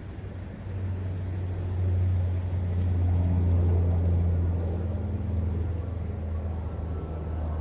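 The low drone of a passing engine swells about a second in, is loudest around three to four seconds, then eases off. It sits over the faint steady rush of a forest brook.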